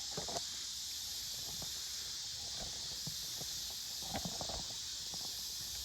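Chickens making a few faint, short clucks near the start and again around four seconds in, over a steady high hiss.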